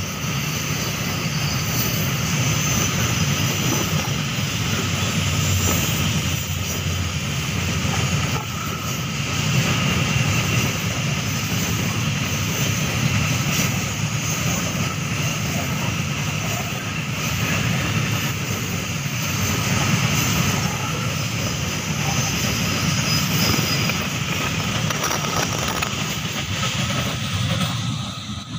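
Wheels of a long Babaranjang coal train's open coal wagons rolling past on the rails: a steady, loud rumble with thin steady ringing tones above it. It fades near the end as the last wagons go by.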